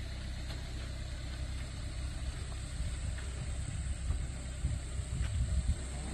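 Daihatsu Terios 4x4's engine running at low revs as it crawls slowly over a rutted gravel track.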